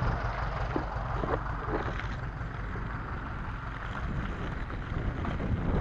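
Wind buffeting the microphone over the steady low rumble of off-road inline skates with three 125 mm urethane wheels rolling on a rough dirt track.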